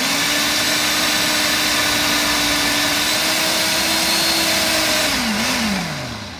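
Ninja blender motor running at full speed, blending leafy greens into a smooth green smoothie. About five seconds in it is switched off and winds down, its pitch falling.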